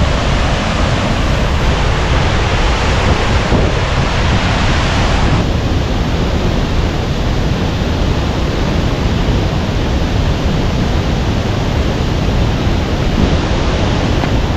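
Henrhyd Falls waterfall, a steady, loud rush of falling water.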